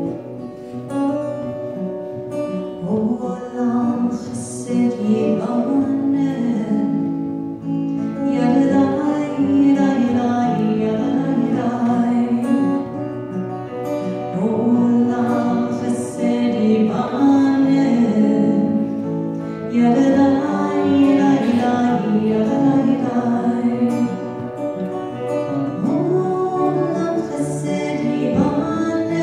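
A woman singing a slow melody into a microphone, accompanied by an acoustic guitar.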